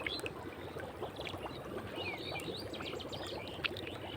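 Natural gas bubbling up through waterlogged ground, a dense steady crackle of tiny pops, with birds chirping, most clearly about two seconds in.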